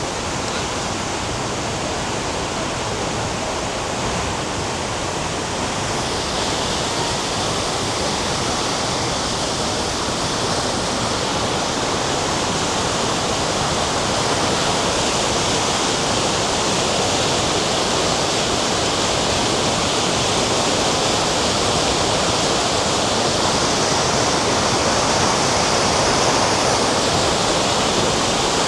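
Steady rush of falling water, a waterfall's roar mixed with heavy rain, growing a little louder over the second half.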